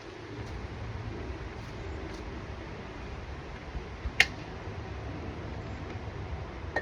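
Steady low background hum, with a single sharp click about four seconds in.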